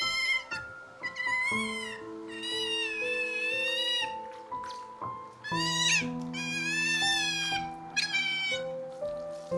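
Otters squealing: a series of about six high-pitched, wavering calls, each up to a second and a half long, over soft background music with held notes.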